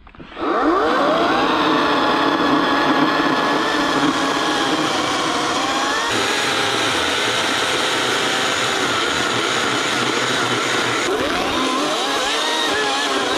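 Ryobi electric chainsaw cutting wood. Its motor spins up with a rising whine at the start, then runs under load at a steady high whine, and winds up again near the end before cutting off suddenly.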